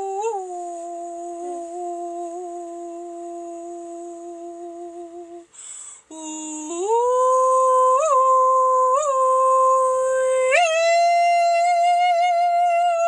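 A woman's voice toning long, steady humming notes: one low note held for about five seconds, a breath, then a note that slides up and holds with small flicks, stepping up higher about ten and a half seconds in.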